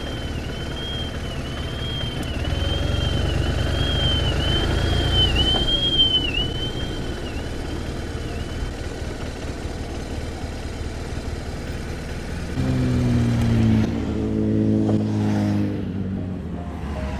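Motorcycles rolling slowly on the circuit: low engine and wind rumble, with a faint warbling electronic tone that dips about once a second through the first half. About four seconds from the end, a louder hum with several steady pitches comes in.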